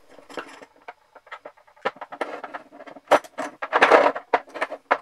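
Irregular metallic clicks, clinks and scrapes of screwdrivers and small steel parts as the eccentric bearing of an orbital sander is levered off its shaft and the freed bearing, bolt and plate are handled, with a denser, louder cluster of clatter about three seconds in.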